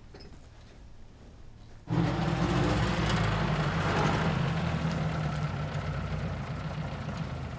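Quiet room tone, then about two seconds in the engine of an open-top GAZ-67 army jeep comes in abruptly, running steadily as the jeep drives slowly up and easing off toward the end.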